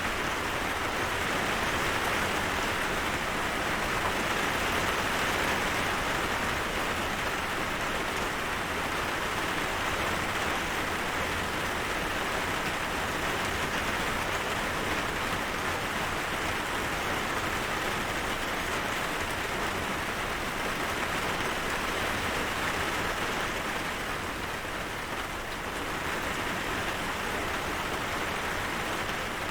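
Steady rain falling, an even hiss of drops that eases slightly for a moment near the end.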